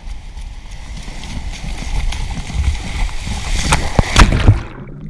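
Splashing and rushing water as a camera is carried running into breaking surf, over a low rumble of wind and handling on the microphone. Loud splashes come about three and a half to four and a half seconds in, then the sound drops away suddenly.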